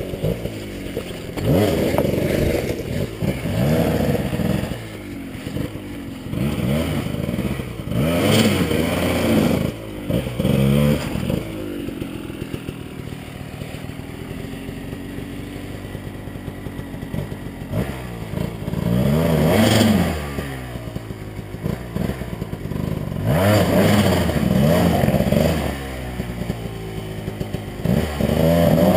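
Enduro dirt bike engine revving in repeated bursts, its pitch rising and falling, as the bike is ridden up a rocky climb under load, with a steadier, quieter running between bursts in the middle.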